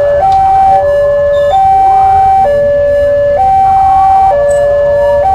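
Railway level-crossing warning alarm sounding its electronic two-tone signal, alternating between a higher and a lower tone about once a second: the signal that a train is approaching and the barrier is closed.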